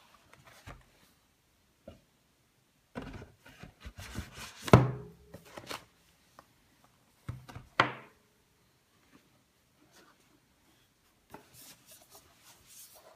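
Gloved hands handling and turning a product box: scattered rubbing and light knocks, the loudest knock about five seconds in and another near eight seconds, with soft rubbing near the end.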